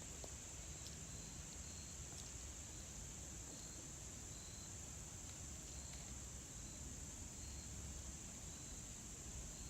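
Faint outdoor insect chorus of crickets: a steady high-pitched drone, with short, higher chirps repeating every second or so.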